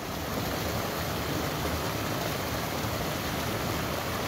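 Steady rush of flowing stream water, an even hiss with no distinct splashes or knocks.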